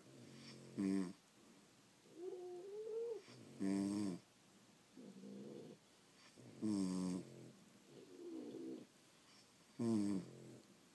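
Sleeping French bulldogs snoring: a loud snore about every three seconds, with softer breaths between that carry a wavering whistle-like tone.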